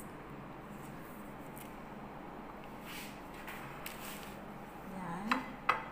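Kitchen utensils being handled over a glass bowl: bamboo skewers and tongs give faint taps through the middle, then two sharp clicks about half a second apart near the end.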